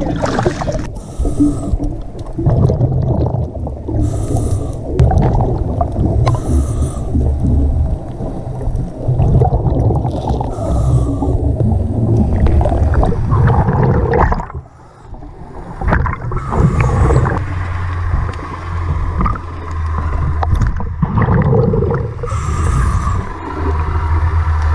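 Scuba diver breathing through a regulator underwater: a hiss on each inhalation every few seconds, then a long low rumble of exhaled bubbles.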